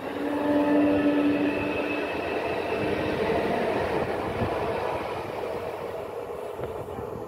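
Koleje Małopolskie EN64 electric multiple unit running past on the rails: an electric whine in several steady pitches that shift in steps, over wheel-on-rail rolling noise. It is loudest about a second in and fades as the train moves away.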